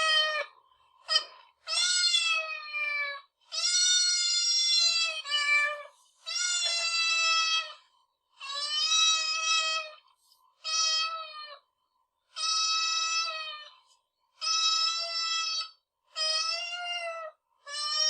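Domestic cat meowing repeatedly: about ten drawn-out meows, most around a second long, each dipping slightly in pitch at the end, with short pauses between them.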